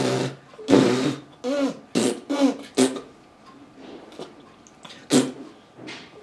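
Baby blowing raspberries: a string of short buzzing lip bursts, about six in quick succession, then a pause, then two more near the end.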